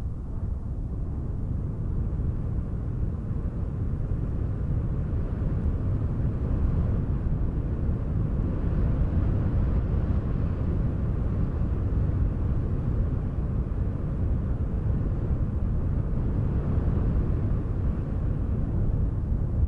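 Steady low rumbling wind noise, a deep even roar with no tones in it, building slightly over the first few seconds and then holding.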